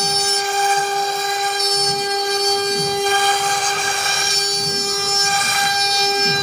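CNC router spindle running at a steady high pitch while its end mill cuts a slot into a coconut-fibre composite slab. A lower whir rises and falls every second or so underneath.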